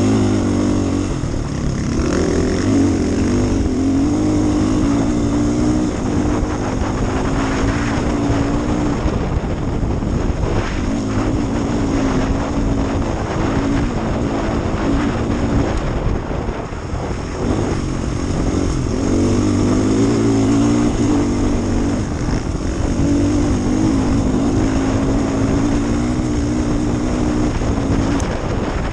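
Off-road rally motorcycle engine running hard on the move, its note holding steady for stretches and wavering as the throttle and gears change. Dense rumble from the tyres on a loose, stony track runs under it.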